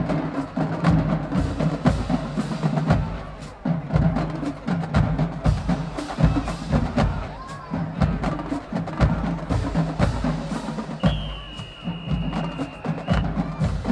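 High school marching band percussion playing a fast, driving cadence of snare and bass drum strikes over low sustained band tones. Near the end a single high steady tone is held for about two seconds.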